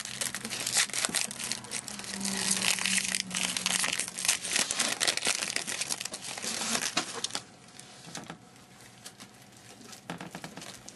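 Crinkling and tearing of a plastic-wrapped trading card pack being torn open and handled, busy for about seven seconds, then dying down to faint rustling.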